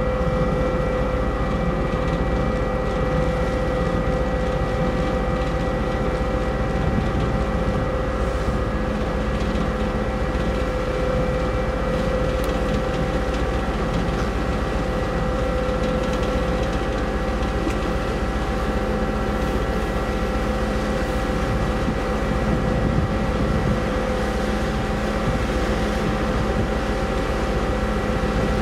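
Steady drone of the car ferry MV Queen of Cumberland under way, heard on its stern deck: a low engine rumble with several steady machinery hums above it.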